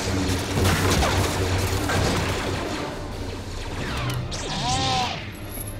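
Film battle soundtrack: rapid blaster shots and crashes over music, with a brief swooping tone about four and a half seconds in.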